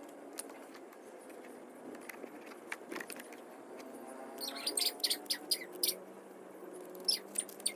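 Small birds chirping: a quick run of short, high chirps about halfway through and a few more near the end, over a faint low drone.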